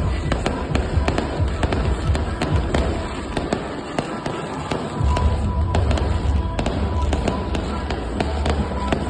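Fireworks going off in rapid succession, many sharp cracks and pops one after another, with music playing underneath.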